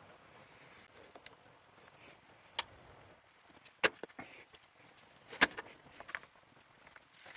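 Scattered sharp clicks and knocks from handling the phone and its mount, three louder ones spaced a second or so apart in the middle, over a quiet background.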